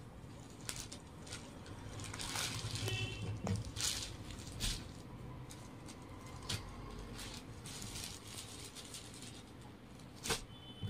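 Soft rustling of a saree's fabric being unfolded and handled, in a few separate swishes, with a few light clicks.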